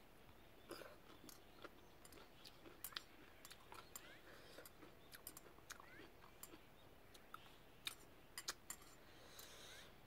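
Faint sounds of eating: scattered soft clicks of metal chopsticks against a small dish, with quiet chewing of rice.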